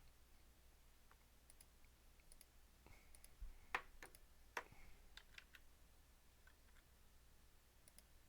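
Near silence with a few faint, scattered clicks of someone working a computer, the clearest about three to five seconds in.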